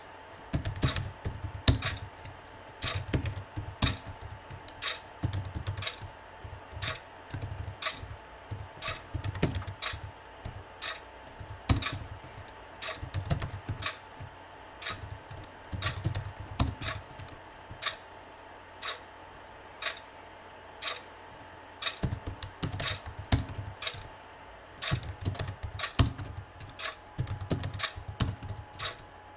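Typing on a computer keyboard: irregular bursts of rapid keystrokes broken by short pauses, with a few single isolated key clicks in a quieter stretch midway through. A faint steady tone runs underneath.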